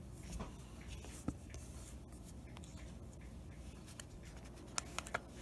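Faint handling noise from fingers on a smartphone: light rubbing and scattered soft taps, with three quick taps close together near the end.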